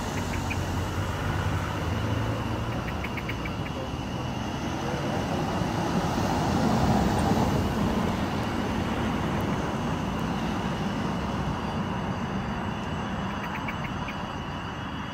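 Street traffic rumbling, swelling to its loudest about halfway through as a vehicle passes, then easing off.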